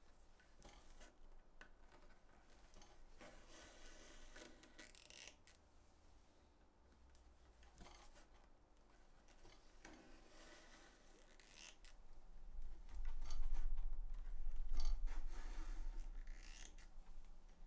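Irregular scraping and cutting strokes of hand tools working leather, each lasting up to about a second. A low rumble swells in about twelve seconds in and is the loudest sound from then on.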